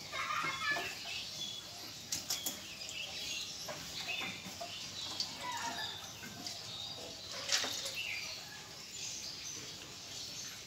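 Light, irregular splashing and sloshing of pond water as a small hand net is swept through it, with scattered small knocks.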